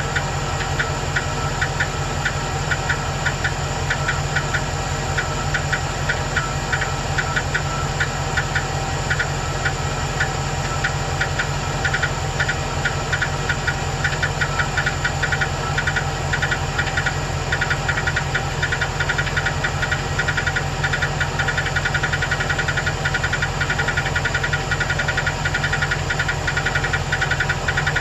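2008 Chevrolet Express 2500's 4.8L V8 idling steadily with a quick, light ticking over the engine hum. The owner first took the tick for a collapsed lifter on cylinder #8 but is no longer sure, since the tick goes away when the revs rise.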